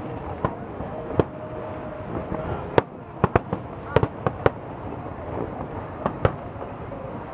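Aerial firework shells bursting: about ten sharp bangs at uneven intervals, several in quick succession in the middle, over steady background noise.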